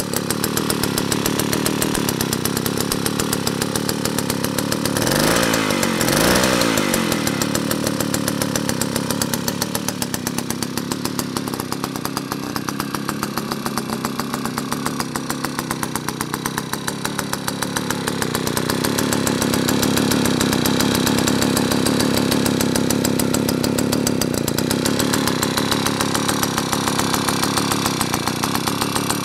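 Vintage 1950 Stihl BL chainsaw's 125 cc single-cylinder two-stroke engine running steadily at idle, with two quick revs up and back down about five and six seconds in.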